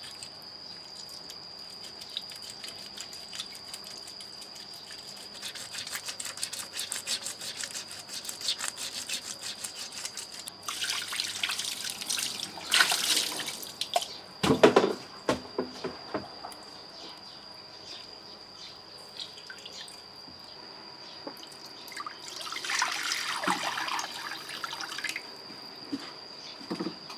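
Water splashing and dripping in bursts, with small clicks and a steady high-pitched tone in the background.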